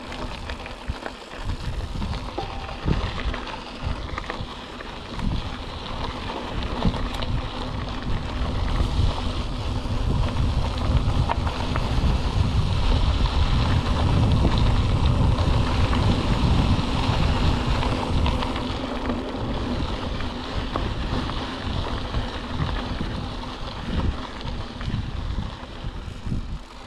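Mountain bike riding down a rough gravel road, its tyres crunching and the bike rattling and knocking over the bumps with its front suspension fork locked out, under heavy wind buffeting on the microphone. The wind roar is loudest in the middle stretch.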